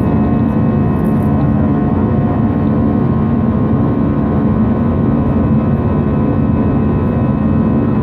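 Cabin noise of an Airbus A319-112 in flight, heard inside the cabin from a window seat beside its CFM56 jet engine: a steady low rush with a few faint steady tones above it.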